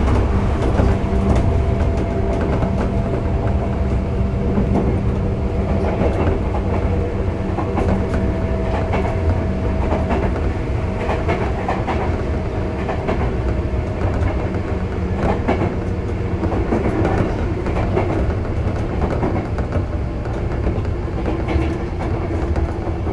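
Running sound of a Sotetsu 8000 series electric train at speed: steady rumble of the wheels on the rails, held tones from the train's motors, and scattered clicks.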